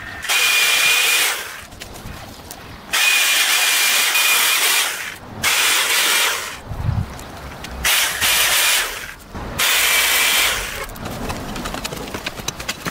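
Corded electric chainsaw cutting into the roots of an uprooted tree stump, in five bursts of a second or two each with a steady motor whine, eased off between cuts.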